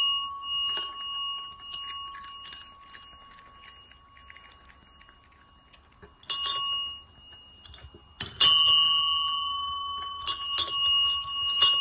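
Chrome service bells (desk call bells) tapped by cats' paws: a ring fading away, then a ding about six seconds in, a louder ding a little after eight seconds, and several quick dings near the end, each ringing on and dying away.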